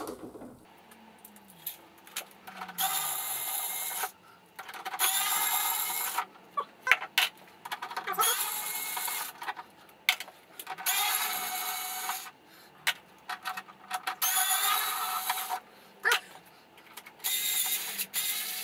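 Screwdriver backing Torx 25 screws out of a motorcycle's plastic fairing panel, played back fast-forwarded, so the work comes through as about six short, high-pitched buzzing bursts with quick clicks between them.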